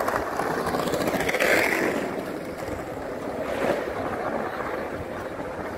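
City-square ambience: a steady murmur of many people talking, a little louder in the first two seconds.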